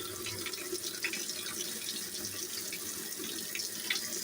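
Top-loading washing machine filling with cold water: water pouring into the empty drum with a steady splashing rush, dissolving a detergent pod before the laundry goes in.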